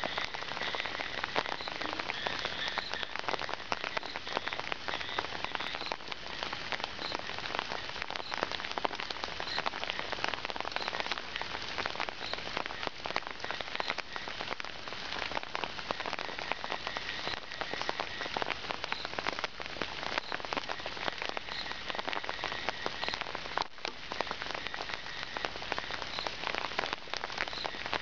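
Steady rain falling, with many close drop hits.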